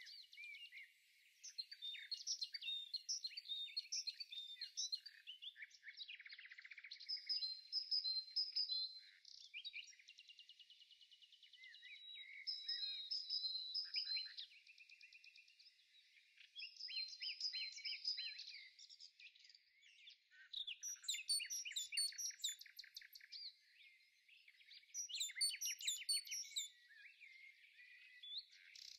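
Birdsong: a songbird singing in varied phrases of rapid trills and high chirps, with short pauses between phrases.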